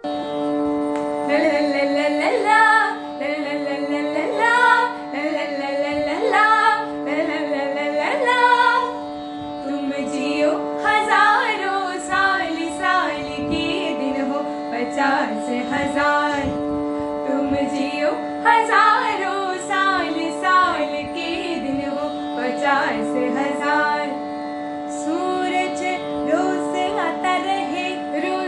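Two girls singing a song, their voices wavering through ornamented melodic lines over a steady drone accompaniment.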